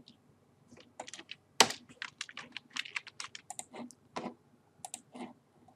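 Typing on a computer keyboard: irregular keystrokes, one sharper and louder about a second and a half in.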